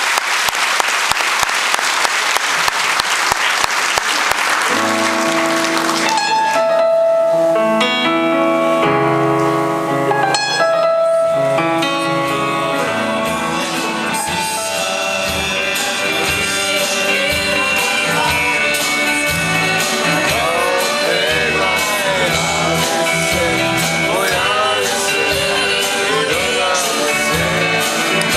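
Audience applauding for about six seconds, then a live band starts a song with held chords over a steady beat, and singing comes in about halfway through.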